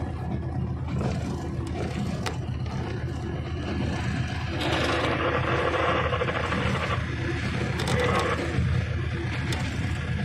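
GE U20 diesel-electric locomotive running, heard from its outside walkway: a steady low engine hum with wheel and rail noise. From about four and a half seconds in, a louder, harsher scraping noise joins it as a rock wall closes in beside the track.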